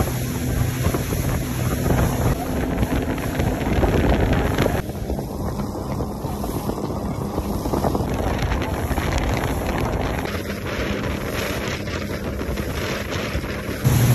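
Motorboat running at speed: water rushing and spraying along the hull, and wind buffeting the microphone, over the engine's steady drone. The drone is clearest in the first couple of seconds. The mix changes abruptly a few times as the clips cut.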